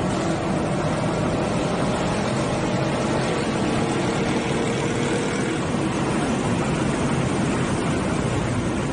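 Honda Civic Si's four-cylinder engine running: a steady engine note with a slowly drifting pitch over a constant noisy hiss.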